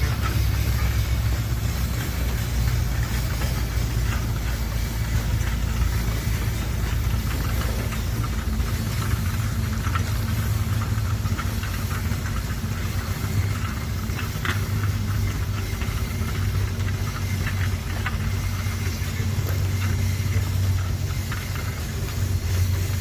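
A small locomotive running slowly in reverse, with a steady low rumble and scattered light clicks and clanks.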